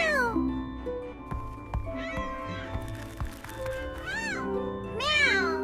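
Cartoon cat characters meowing several times, each meow rising and falling in pitch, over soft background music with held notes.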